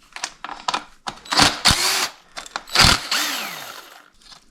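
Cordless power tool run in two short bursts to undo chain guide bolts, each burst winding down with a falling pitch, after a few light clicks of tool and metal handling.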